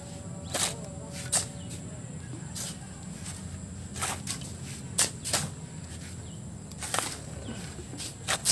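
Shovels digging into a pile of river sand and flinging it, heard as irregular sharp scrapes and swishes about once a second, over a steady low rumble.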